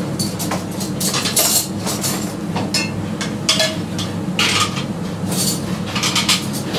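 A chef's knife cutting carrot slices into julienne: irregular knocks and short clattering scrapes of the knife and utensils on a cutting board, over a steady low hum.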